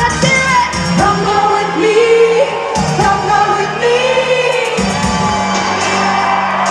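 Live freestyle pop music: a female vocal group singing over a backing track with a steady bass line and drum beat.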